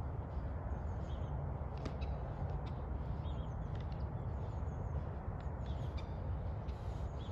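Steady low outdoor rumble with small birds chirping now and then, and a few faint clicks.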